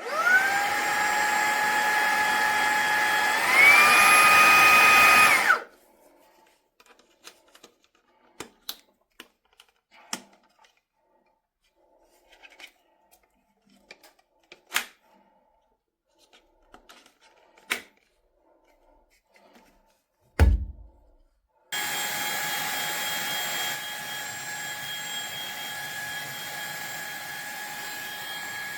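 A Fanttik V8 Apex cordless handheld vacuum's motor starts with a rising whine, steps up in pitch and loudness to its high-power setting a few seconds later, then shuts off. Light clicks and handling taps follow, with one sharp thump, before the motor runs again and settles slightly quieter.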